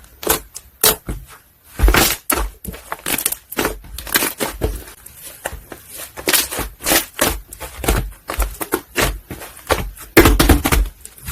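Soft liquid slime squished and folded by hand, giving a quick, irregular run of wet clicks and air-bubble pops.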